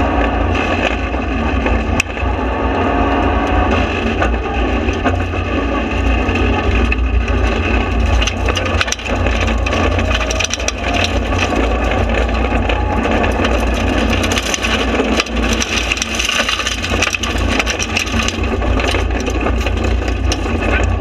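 Cabin noise of a Mitsubishi Lancer Evolution rally car at speed on a stage: its turbocharged four-cylinder engine rising and falling in pitch as it pulls and shifts. Stones and gravel crackle and pelt against the underbody and wheel arches, most densely once the car is on the loose gravel section.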